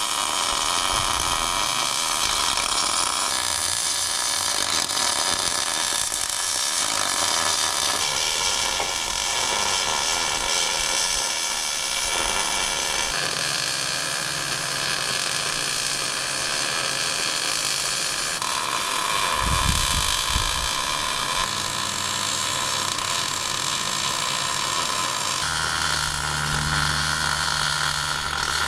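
MIG welder arc, a steady crackling hiss running without a break while a weld bead is laid on steel.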